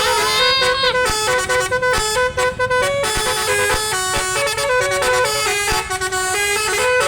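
Bus telolet horn, a Basuri multi-tone musical air horn, playing a quick melody of short stepped notes, with one rising slide near the start.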